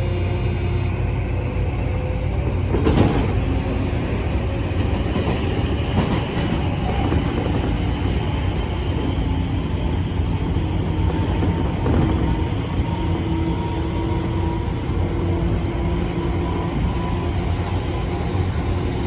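Tobu 9000 series car MoHa 9204 running, heard inside the car: its Toyo Denki armature chopper control gives a steady tone over the rumble of wheels on rail, with a few short knocks. This car's chopper tone is lower than the standard one and sounds like that of a JR 201 series, an unusual state the uploader takes for a moody chopper unit.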